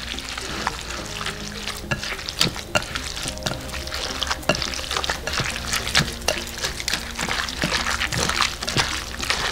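Bare hands squeezing and tossing salted, wet grated cucumber and onion in a glass bowl: a continuous wet squelching and crackling made of many small irregular squishes.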